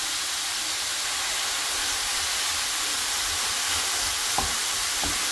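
Chopped button mushrooms frying in a stainless steel pan with a steady sizzling hiss. A wooden spatula gives two soft knocks against the pan near the end.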